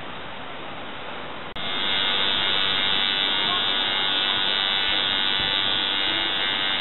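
Tattoo machine buzzing steadily as it works the skin. It starts abruptly about a second and a half in, after a stretch of steady hiss.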